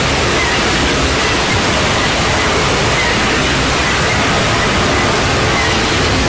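A loud, steady wall of harsh static-like noise with a faint high whine running through it: a heavily distorted jumpscare sound effect.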